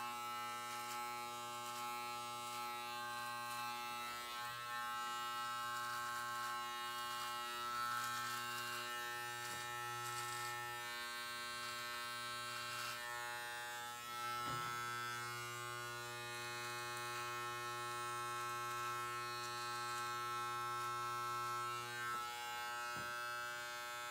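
Corded electric hair clippers buzzing steadily with a low hum as they trim the neck hairs at the back of the neck.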